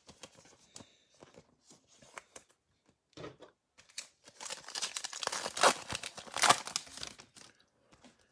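A trading-card pack wrapper being torn open and crinkled for about three seconds, starting about four and a half seconds in. Before it come light clicks and rustles of cards being handled.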